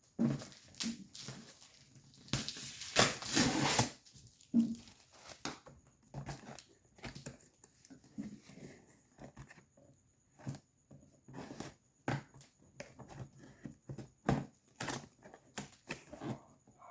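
Packaging being unwrapped by hand: scattered rustles, crinkles and small knocks, with a loud stretch of tearing and crumpling about two to four seconds in.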